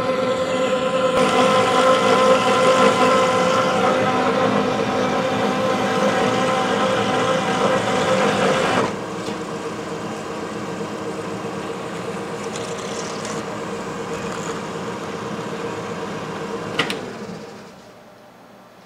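DoAll vertical band saw cutting through a block of H13 tool steel: a steady machine whine with the rasp of the blade in the cut. The sound drops in level about nine seconds in, then runs on steadily. Near the end there is a sharp click and the saw stops.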